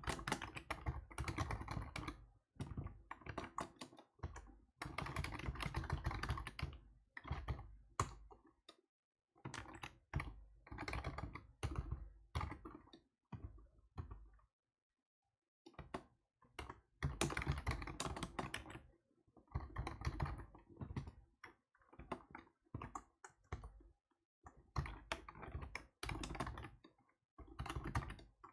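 Typing on a computer keyboard, in quick runs of keystrokes broken by short pauses, with a longer break about halfway through.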